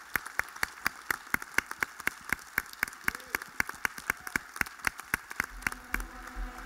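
Audience clapping in a steady rhythm, about four claps a second.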